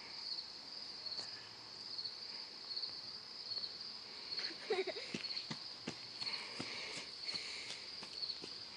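Crickets chirping in a steady, evenly pulsing high-pitched chorus, with a few faint scattered knocks and a short faint sound near the middle.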